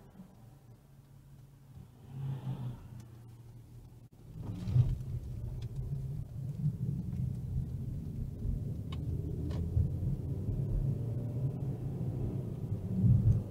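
Car heard from inside the cabin: quiet at first while stopped, then about four seconds in it pulls away and accelerates, and a steady low rumble of engine and road noise carries on as it drives.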